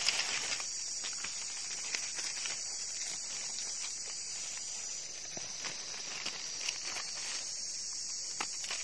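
Insects droning steadily at a high pitch, with scattered light rustles and clicks close by.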